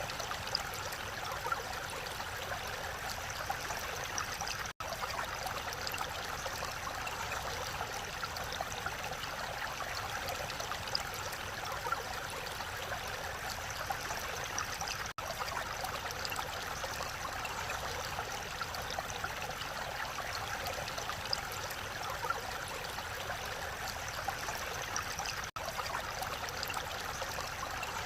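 A mountain valley stream flowing steadily, an unbroken rush of water broken only by three momentary dropouts about ten seconds apart.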